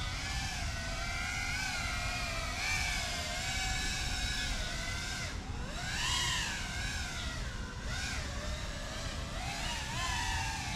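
FPV quadcopter's motors and propellers whining, the pitch wavering up and down with the throttle, with a sharp climb and drop about six seconds in.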